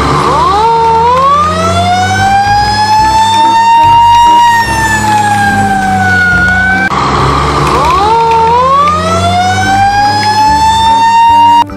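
Fire truck siren wailing: it climbs to a high steady note, then slowly sinks. It breaks off about seven seconds in and rises again, over a steady low rumble, and cuts off suddenly near the end.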